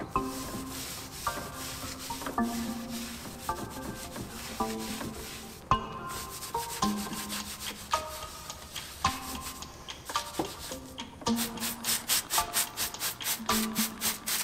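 Stiff bristle brush scrubbing wet, foamy degreaser on an engine's intake runners and block: a steady scratchy rubbing that turns into quick back-and-forth strokes, about four a second, near the end. Soft background music plays along.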